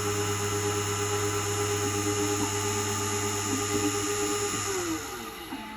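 Keyline 994 Laser key-cutting machine's cutter motor running steadily with a whine as it cuts the second side of a key, then winding down with a falling pitch near the end as the cut finishes.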